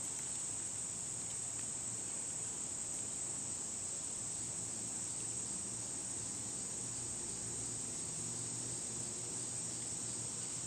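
Chorus of insects, crickets or katydids, giving a steady high-pitched drone that does not let up.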